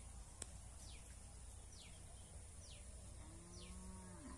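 A bird repeating a short, high falling whistle about once a second over a low steady background hum. A single sharp click comes shortly after the start.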